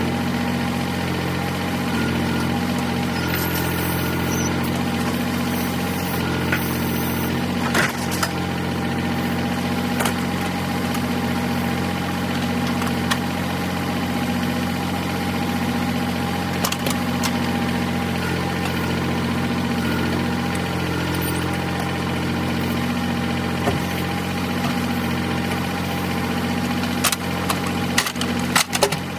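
An engine running steadily at low speed, with a slow regular pulsing in its note, and a few sharp knocks and clunks, several of them close together near the end.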